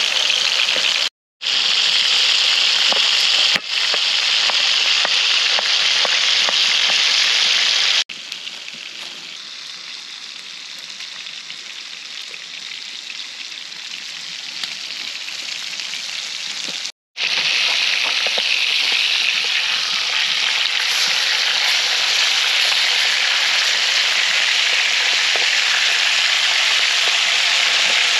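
Steaks sizzling in hot oil in a pan over a wood fire, a dense steady hiss with fat popping and spitting through it. The sizzle cuts out to silence twice for a moment and turns quieter for several seconds midway.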